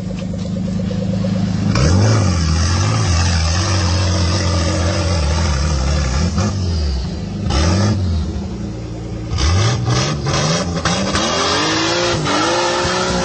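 Off-road 4x4 engine revving hard in repeated bursts, its pitch rising and falling, with stretches of rushing noise. A cluster of sharp knocks comes about two-thirds of the way through.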